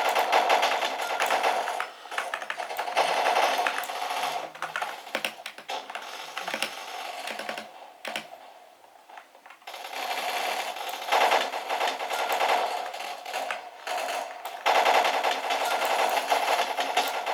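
Game audio from a first-person shooter: long bursts of rapid automatic gunfire, dropping away for a couple of seconds near the middle before the shooting starts again.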